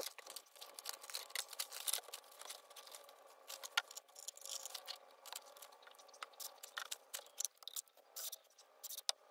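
Faint, scattered clicks, knocks and scrapes of a wooden stair-stringer assembly and hand tools being handled, with one sharper knock a little before the four-second mark.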